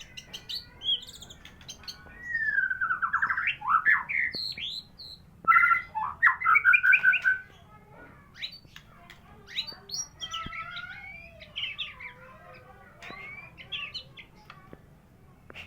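White-rumped shama (murai batu, Medan type) singing a varied song: loud, rich whistled phrases that slide up and down through the first half, then quieter, faster chattering and clicking phrases.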